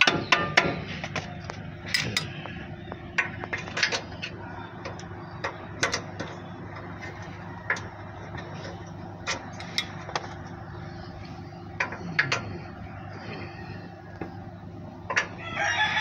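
Hand tools clicking and clinking on metal as bolts on a Suzuki Carry's lower suspension arm are worked, in irregular sharp clicks over a steady low hum. A rooster starts crowing right at the end.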